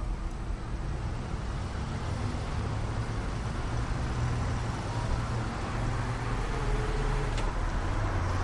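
Road traffic noise: cars passing on the street, a steady low rumble that grows a little louder near the end.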